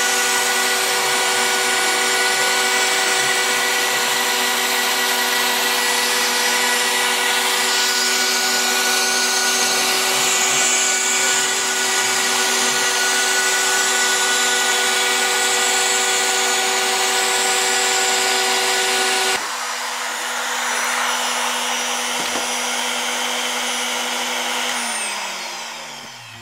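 Home-made CNC router's spindle running steadily as it cuts a wooden sign, a whine with several steady tones. About 19 seconds in, much of the noise cuts off suddenly. Near the end the spindle winds down, its pitch falling as it fades.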